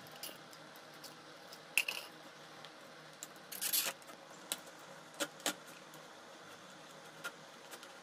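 Handling noises from a plastic bottle and a wooden stick. A few light clicks and knocks are scattered through, and a brief crinkling rustle about halfway through is the loudest sound.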